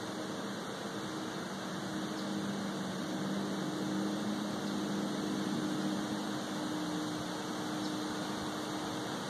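A distant engine droning steadily over a constant hiss, its low hum swelling slightly in the middle and easing off again.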